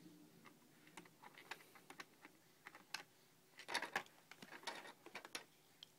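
Plastic toy screws and pegboard pieces clicking and clattering as they are handled: scattered light clicks, with a louder cluster of clatter about four seconds in.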